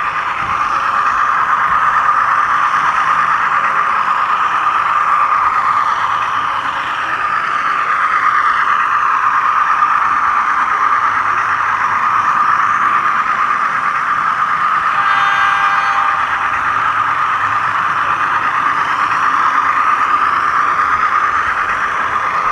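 HO scale 600 class model locomotive running along the track, its wheels and motor making a steady whirring rattle close to the onboard camera. About two-thirds of the way through, a brief squealing tone rings out.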